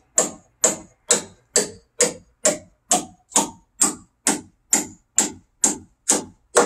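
Hammer blows struck upward into a timber roof beam, a steady run of about two strikes a second, each with a short ring.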